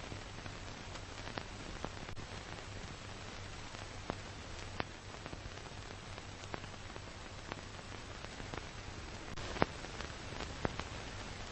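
Steady hiss with a low hum and scattered crackles and pops, one sharper pop near the end: the surface noise of an old film soundtrack with no recorded sound on it.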